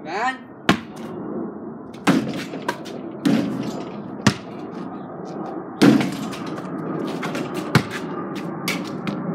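A basketball bouncing and knocking, about seven irregularly spaced thuds, the loudest about 6 seconds in, over a steady background hiss.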